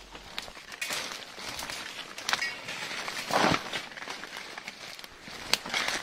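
Footsteps crunching and rustling through dry leaf litter and twigs on a steep jungle trail, an uneven run of crackles with one louder crunch a little past the middle.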